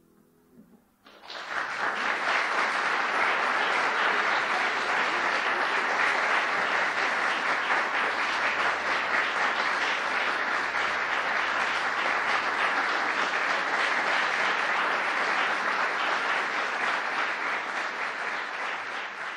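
Audience applause breaks out about a second in, just as the last piano chord dies away, and runs on steadily before starting to fade near the end.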